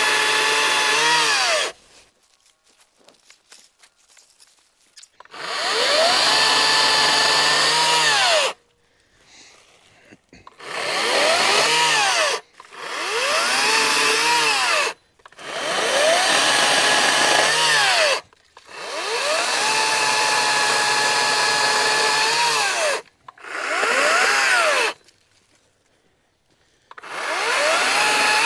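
Echo DCS-5000 56V battery chainsaw cutting dead black locust limbs in about eight bursts, each a motor and chain whine that rises in pitch as the trigger is squeezed, holds through the cut and falls away on release. Between cuts it is near silent, since the electric saw does not idle.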